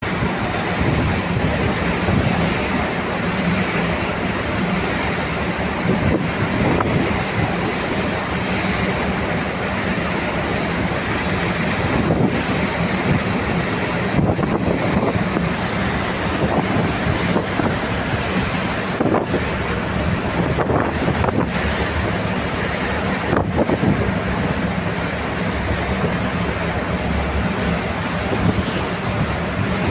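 Steady wind rushing over the microphone, mixed with the wash of river waves.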